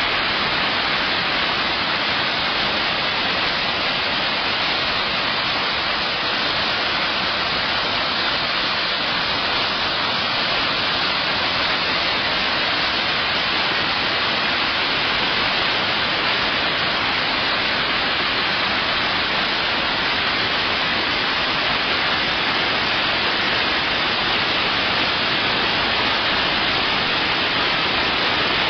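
Steady, unbroken rush of falling water from Iguazu Falls, a dense hiss strongest in the upper range.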